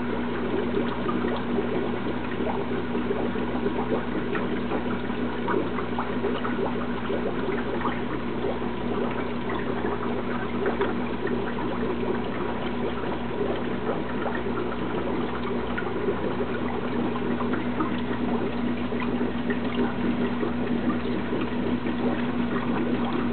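Aquarium filter running: a steady trickle and splash of water with a constant motor hum underneath, from what is likely the tank's Marineland Magnum 350 canister filter.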